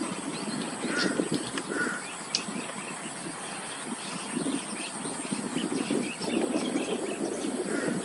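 Crows cawing: short calls about one and two seconds in and again near the end, over a steady low rumbling noise.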